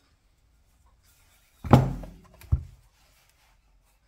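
A heavy steel motorcycle flywheel set down on a metal workbench: two heavy thunks a little under a second apart, the first louder and briefly ringing.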